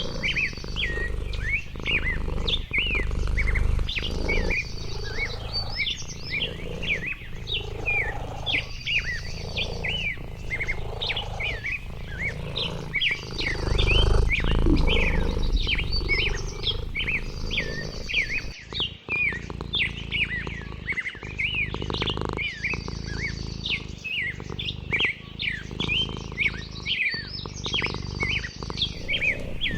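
Several songbirds chirping busily, many short rising and falling chirps, with a high buzzy trill that comes back every three seconds or so. A low rumble runs underneath and swells about halfway through.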